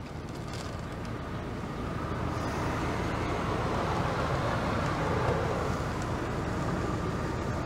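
Electric motor of a Toyota Land Cruiser Prado's power third-row seat running steadily as it raises the left seatback, gradually getting a little louder.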